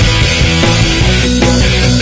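Loud rock music with distorted guitars, bass and drums.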